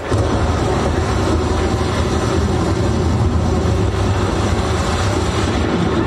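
Stormy-sea sound effect played loud over a hall's sound system: a steady low rumble of heavy waves with no tune, coming in abruptly in place of the music.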